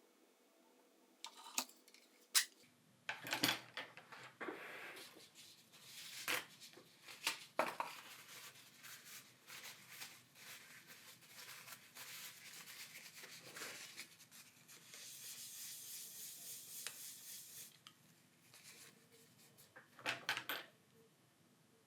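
Small hand-work sounds on a phone repair: several light clicks and taps of tools and plastic parts, then a long stretch of soft scraping and rubbing, and a brief rustle near the end.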